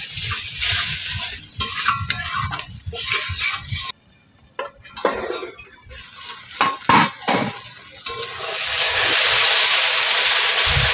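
A spatula stirring and scraping thick masala paste in an aluminium kadai over a wood fire, with clinks of a steel lid against the pan about halfway through. Near the end a steady hiss sets in as the paste fries in the oil it has released.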